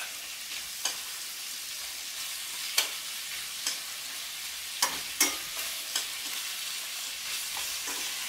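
Green beans and cherry tomatoes sizzling in a hot skillet, with several sharp clicks of metal tongs against the pan as the vegetables are tossed.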